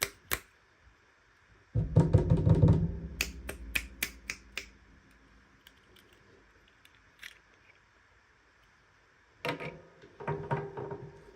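Toy packaging being handled and opened by hand: a burst of rustling and crinkling, then a run of sharp clicks, several quiet seconds, and more crinkling near the end.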